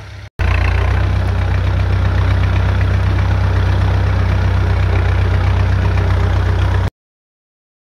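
Tractor engine running steadily and loudly with a deep rumble. It starts abruptly about half a second in and cuts off suddenly about a second before the end, leaving silence.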